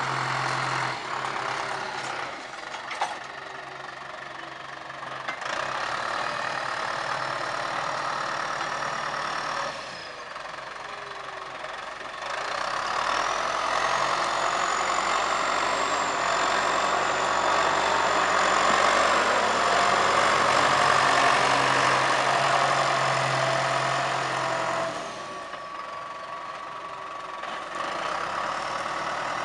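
John Deere farm tractor's diesel engine working under load as it drags a multi-shank ripper through the soil. It runs steadily, louder in the middle of the stretch, where a high whistle rises, holds and then falls away.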